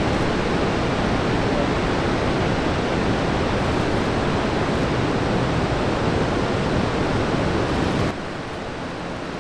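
Steady roar of breaking ocean surf, which drops abruptly to a quieter level about eight seconds in.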